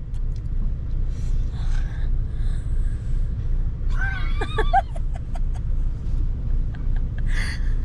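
Steady low road rumble inside a moving car's cabin. A short voice sound, like a brief laugh, comes about four seconds in.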